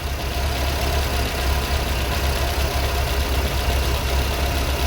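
Vauxhall Viva HC's 1256 cc four-cylinder engine idling steadily, its carburettor mixture just leaned off during a flame-colour tune.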